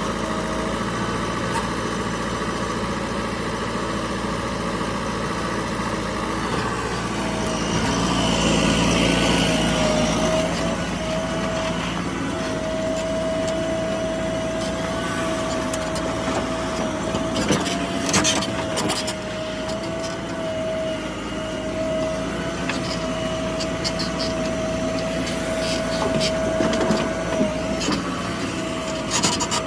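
JCB 3DX backhoe loader's diesel engine running under load while it digs and loads mud, rising for a few seconds early on, with a steady high whine from about a quarter of the way in. A few sharp clanks come around the middle and near the end.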